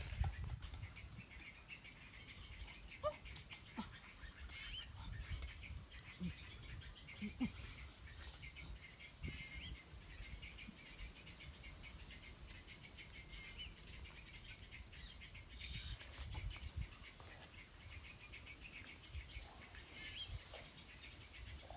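Faint forest ambience: birds chirping, with a steady high buzz through the middle stretch. Leafy branches and dry leaves rustle close by.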